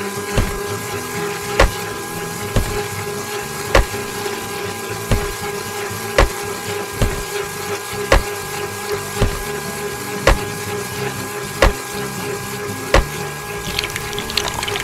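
Small DC motor of a toy juice machine running with a steady whine after spinning up. A short thump recurs about once a second.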